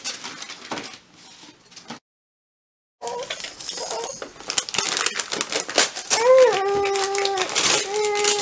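Wrapping paper crackling and tearing, with a second of dead silence at an edit about two seconds in. From about six seconds in a long, steady pitched sound is held, then comes again briefly near the end.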